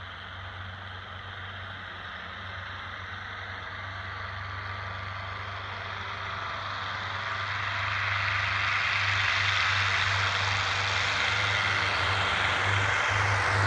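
Piper Twin Comanche's two piston engines and propellers at takeoff power, growing steadily louder as the light twin accelerates down the runway toward the listener.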